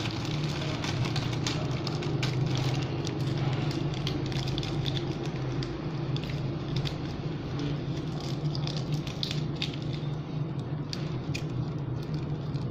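Plastic bags crinkling as they are handled, in irregular short crackles, over a steady low hum.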